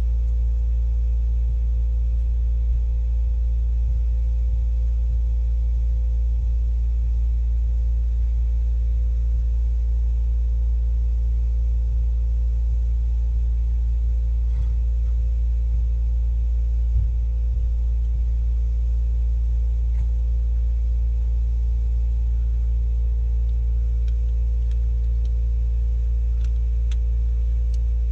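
A steady low mechanical hum with a faint steady tone above it, unchanging throughout, with a few faint clicks near the end.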